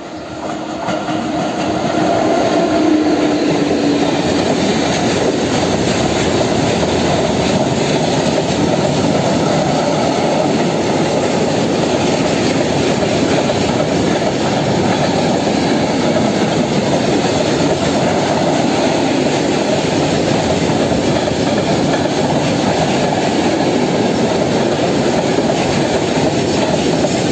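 Electric locomotive passing close with a hum in the first few seconds, followed by a long freight train of tank wagons rolling by steadily, its wheels running loudly over the rails. The noise builds over the first two seconds as the train arrives, then stays even.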